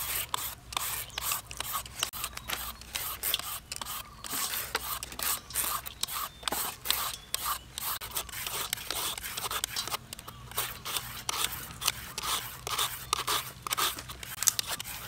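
Julienne peeler scraping down green papaya and then a carrot in quick repeated strokes, several a second. Each stroke gives a sharp rasp as the toothed blade cuts thin strips for papaya salad.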